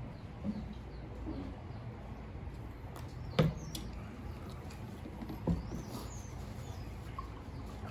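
Faint bird chirps and calls over a steady low background, with two sharp knocks about three and a half and five and a half seconds in.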